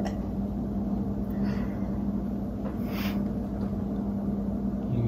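A steady low mechanical hum with a rumble beneath it, with a few faint short soft sounds over it.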